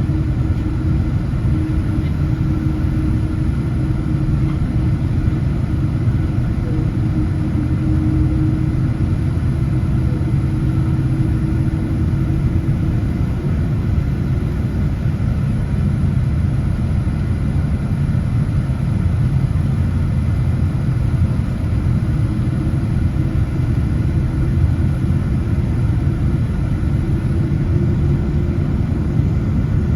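Airliner engine noise: a steady low rumble, with a held tone that fades out about halfway through and another tone that rises near the end.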